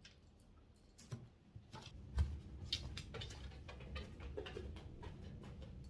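A dog's claws clicking and pattering on an indoor floor as it walks, with a soft low thump about two seconds in.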